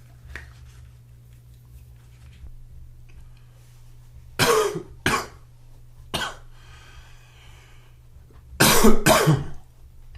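A man coughing: three single coughs within about two seconds, starting about four seconds in, then a louder double cough near the end.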